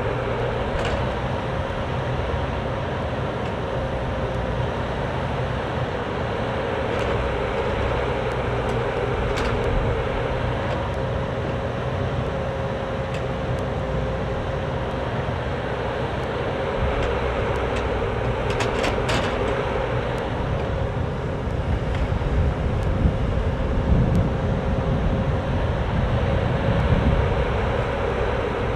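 Cat 304D mini excavator running steadily while it works, with a steady whine over the engine. A few sharp clanks come through, and the low rumble grows heavier and more uneven in the last several seconds as the bucket moves and dumps dirt.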